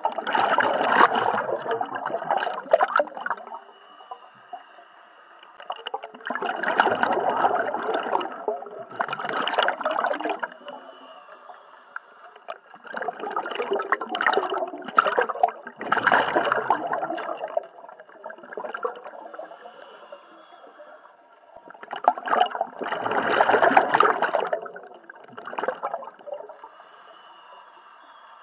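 Scuba diver breathing underwater through a regulator: exhalations leaving as long bubbling rushes, four of them several seconds apart, with quieter gaps between breaths.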